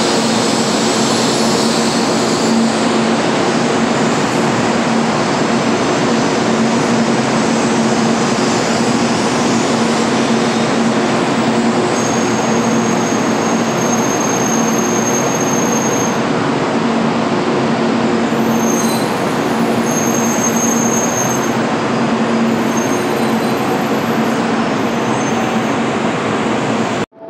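Kyushu Shinkansen 800 series train pulling in along the platform: a loud, steady rush of wheels and running gear over a low hum. A thin high whine comes in twice in the second half.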